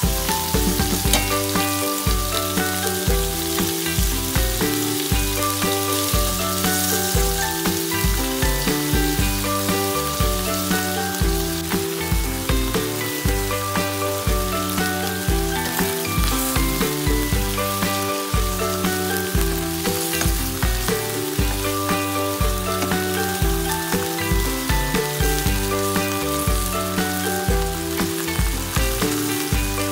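Thin beef slices frying and sizzling in oil in a nonstick pan as they are turned with tongs, under background music with a steady beat and a stepping melody.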